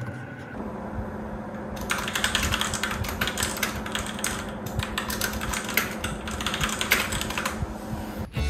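Fast typing on a budget mechanical keyboard: a dense, uneven run of key clicks that starts about two seconds in and stops just before the end, over a steady low hum.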